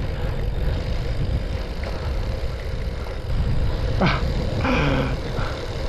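Wind rushing over the camera microphone and gravel-bike tyres rolling on a dirt fire road, heard as a steady low rumble. About four seconds in come a short rising yelp and a brief vocal sound from the rider.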